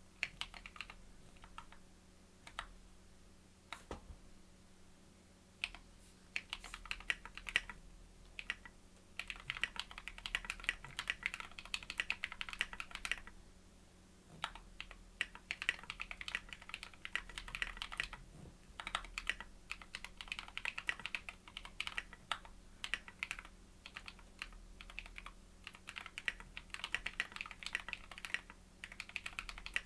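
Typing on an Anne Pro 60% mechanical keyboard with lubed and filmed Holy Panda tactile switches, SA-profile keycaps and a foam-filled case. Scattered keystrokes at first, then runs of fast typing broken by brief pauses.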